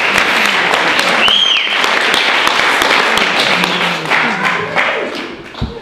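Audience applauding and cheering, with a loud whistle about a second in; the applause dies away near the end.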